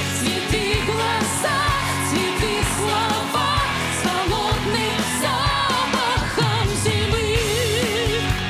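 A woman singing a pop song with a band, her voice wavering in long held notes over a steady beat.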